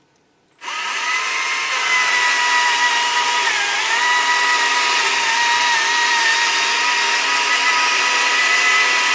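Stihl MSA 120 C battery chainsaw starting about half a second in and running with a steady high whine. Its pitch dips briefly as the chain cuts through a thick board.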